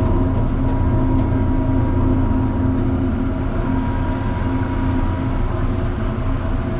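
John Deere 7600 tractor's six-cylinder diesel engine running steadily under load, heard from inside the cab: a constant low drone with a thin, steady whine above it.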